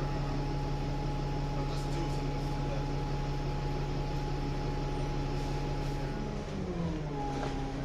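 Steady hum of a bus engine heard from inside the bus while it rides along. The engine note shifts slightly lower about six seconds in.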